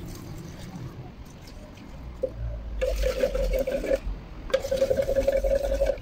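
Clear liquid poured from a plastic bottle into a metal tin of dark paint, then a flat wooden stick stirring the mix, chattering against the inside of the tin in two bouts of a second or so each.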